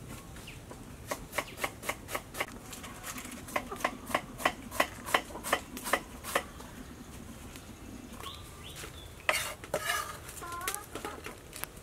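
A knife chopping cabbage on a cutting board: a quick run of sharp strokes, about three a second, for several seconds. About three-quarters of the way in come a few short chicken clucks.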